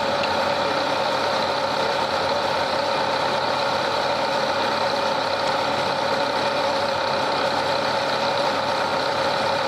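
Heavy construction-machine diesel engine running steadily, with a constant hum and no separate blows.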